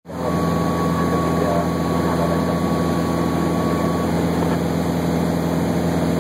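Aircraft cabin noise: the engines' steady drone heard from inside the cabin, a constant low hum over an even rush of air. A faint steady high tone runs alongside for the first four seconds, then stops.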